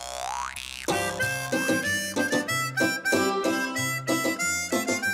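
Instrumental cartoon music. It opens with a rising glide lasting about a second, then a melody plays over a bass line of short separate notes.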